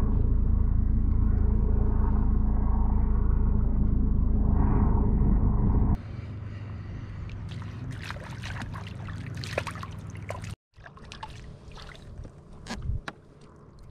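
Wind buffeting the microphone, a loud, steady low rumble for about six seconds. It then cuts to quieter lapping water around a kayak, with scattered small clicks and ticks.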